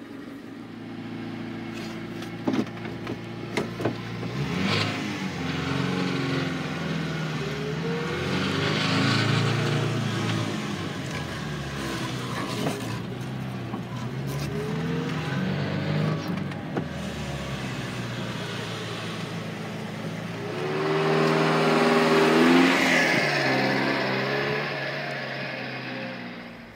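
A small kei-truck engine, the Subaru Sambar's EN07 four-cylinder, revving up and easing off three times as the truck is driven, the last rise the loudest, near the end.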